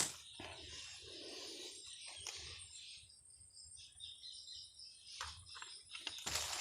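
Faint outdoor ambience: scattered bird chirps over a thin, steady high-pitched insect drone, with a brief burst of rustling noise near the end.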